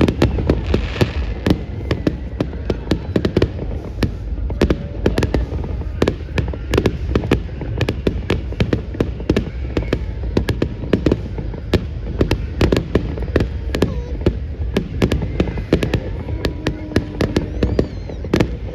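Bonfire burning with rapid, irregular crackling and popping, several sharp cracks a second, over a low rumble.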